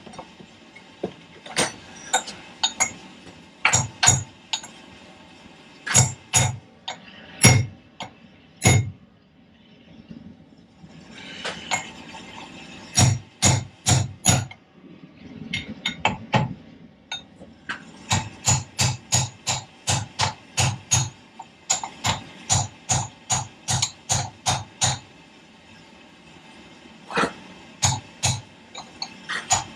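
Hammer blows on metal, driving a tight-fitting part onto the Fordson Major's bull pinion. Single blows with pauses at first, then a steady run of about two blows a second. The fit is too tight for the part to go on.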